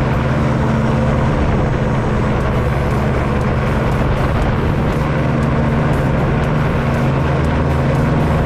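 Powered parachute's engine and pusher propeller running steadily, with wind rushing over the microphone, as the craft descends on final approach to a grass airstrip.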